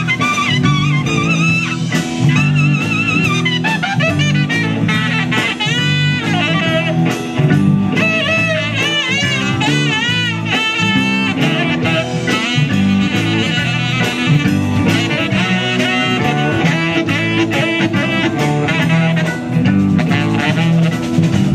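Live band music: a saxophone plays a wavering, vibrato-laden lead melody over electric bass and drum kit in a bluesy rock-and-roll groove.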